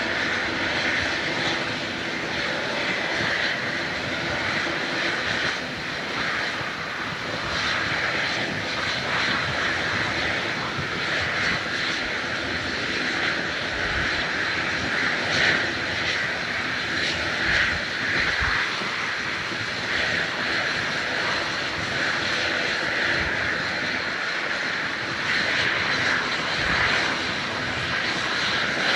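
Large jet airliner's engines during takeoff: a steady, continuous rushing noise with a strong hiss in the upper range, broken by a few brief low thumps.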